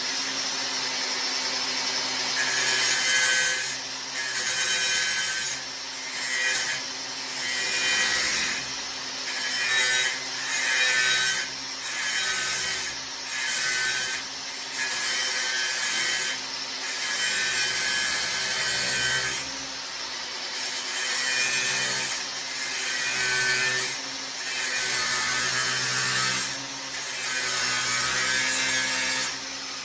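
A power tool running steadily and cutting metal in repeated strokes about a second long, cutting through the tack welds on a crossmember.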